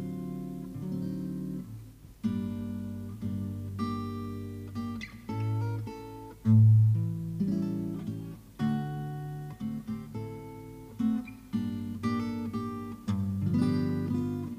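Music: a guitar playing a run of plucked and strummed chords, each note starting sharply and ringing away.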